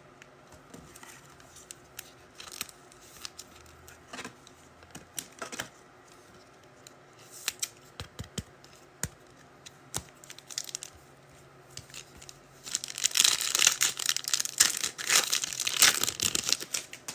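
Scattered light clicks and taps of cards being handled, then in the last four seconds a foil trading-card pack being torn open, its wrapper crinkling loudly.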